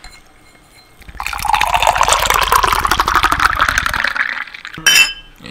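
Guinness stout poured from a can into a glass: a gurgling stream lasting about three seconds that rises in pitch, followed by a short knock near the end.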